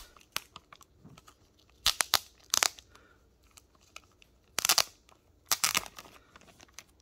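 Resealable plastic bag crinkling in four short bursts as it is handled and opened, with light handling clicks between.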